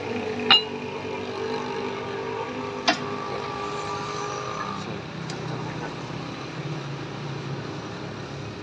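A motor vehicle engine running steadily, its pitched hum dropping lower a little past halfway, with two sharp metallic clicks, about half a second in and again about three seconds in.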